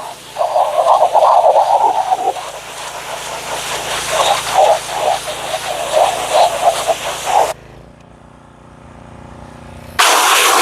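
Pressure washer running, its spray hissing loudly over a steady machine hum, with choppy rises and falls as the jet moves over the surface. The spray drops away sharply about seven and a half seconds in and comes back loud about two and a half seconds later.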